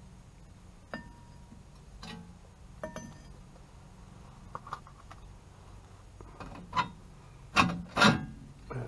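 Scattered clicks and clinks of a sheet-metal brake dust cover being handled and moved, one with a short metallic ring about a second in, and a few louder knocks near the end.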